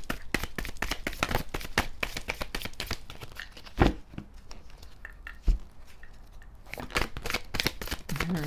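Tarot cards being shuffled by hand, a rapid run of soft clicks and riffling, with two thumps about four and five and a half seconds in and more shuffling near the end.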